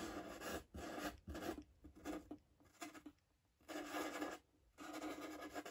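Marker pen drawing on paper: a run of short strokes with small gaps between them, and a pause of about a second a little past the middle.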